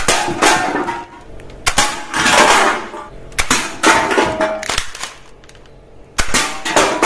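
Toy gun firing: a series of sharp, loud shot sounds about one to two seconds apart, each dying away over a second or so.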